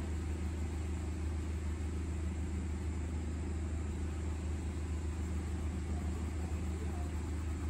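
Steady low hum with an even hiss over it, unchanging throughout; no separate strokes or knocks stand out.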